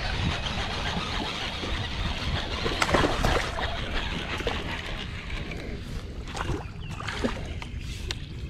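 Steady rumbling wind and water noise on the microphone, with a few sharp clicks and knocks in the second half.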